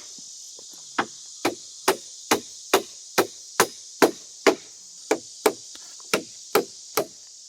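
Hammer driving nails into the wooden floor framing: a steady run of about fourteen sharp strikes, roughly two a second, starting about a second in.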